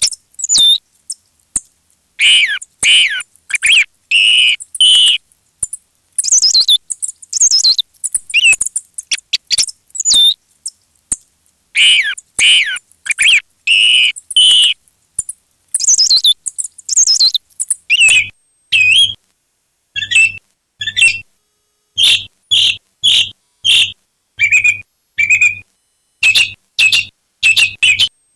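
Redwing calls from a hunting lure recording: thin high notes and quick falling whistles strung into rapid phrases, with short silent gaps between them. About two-thirds of the way in, the calls change to short, evenly spaced groups of about one a second, each with a low hum underneath.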